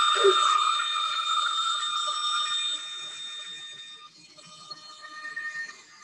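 Bandsaw blade cutting through plywood: a steady high ringing whine over the hiss of the cut. About three seconds in it drops away, leaving quieter running tones at a different pitch.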